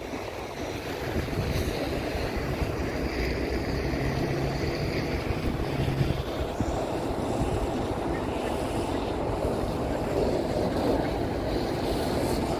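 Wind blowing on the microphone over a steady low engine rumble, with a faint low hum between about four and six seconds in.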